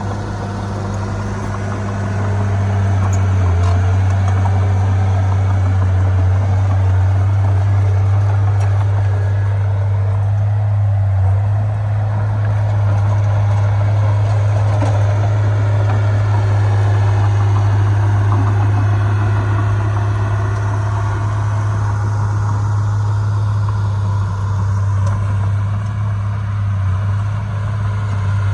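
Heavy diesel engine of earthmoving machinery running steadily with a deep drone, growing louder about two seconds in and then holding.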